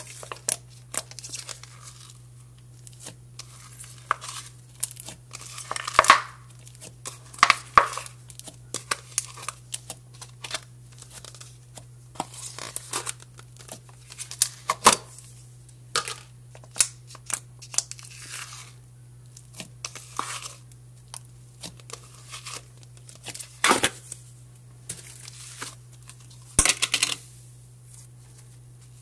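Hands stretching, pulling and squishing cloud and jelly slime: irregular crackling, tearing and sticky popping sounds, over a steady low hum.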